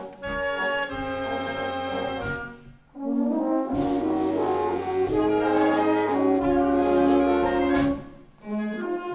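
Wind band (Blaskapelle) playing held brass chords over a tuba bass line, with two short pauses between phrases, about three seconds in and again near the end.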